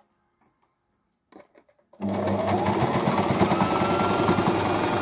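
Sewing machine starting up about two seconds in and running at speed, its motor whine rising in pitch as it speeds up and then holding steady.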